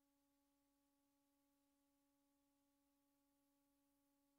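Near silence: only a very faint steady tone with a few weaker overtones above it, unchanging throughout.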